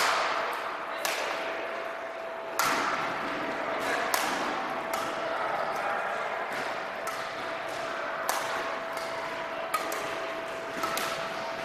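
Badminton rackets striking shuttlecocks in rallies on several courts: sharp, irregular smacks, often a second or less apart, echoing in a large gym hall, over a faint steady hum.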